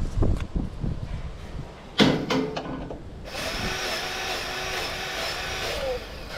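A sharp knock about two seconds in, then a battery-powered grease gun's motor whines steadily for about two and a half seconds, dropping in pitch as it stops, while pumping grease into a combine bearing.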